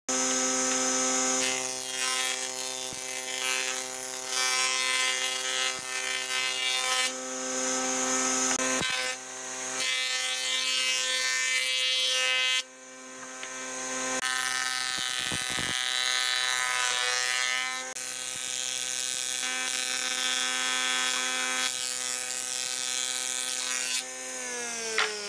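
Woodworking planer running with a steady high whine while boards are fed through, the cutting noise changing from pass to pass. Near the end the motor is switched off and its pitch falls as it spins down.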